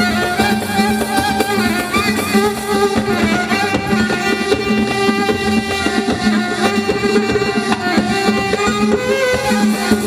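Live band playing loud Moroccan popular music through a stage PA: a violin melody over hand drums and percussion.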